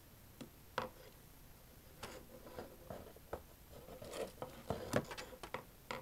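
Close-miked scratching and rustling handling sounds in an uneven run of short scrapes and a few sharp clicks, busiest in the second half.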